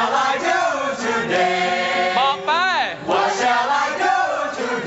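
Several young men's voices singing a vocal warm-up phrase together, overlapping rather than in unison, sung with a determined, resolute feeling. A little over two seconds in, the voices swoop up and back down in pitch.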